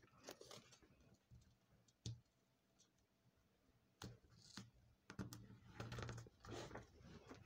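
Faint scattered clicks and soft paper rustles from hands pressing masking tape onto a paper bodice pattern, thicker in the last couple of seconds.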